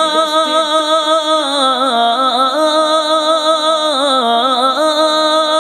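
A single voice singing an Urdu naat, holding one long note with melismatic ornaments and a wavering pitch through the middle of the line.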